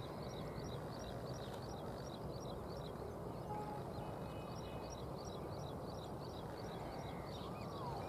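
Open-air ambience: a steady low background rush with a rapid, even series of short high chirps, about three or four a second, running throughout, and a few faint calls, one of them falling in pitch near the end.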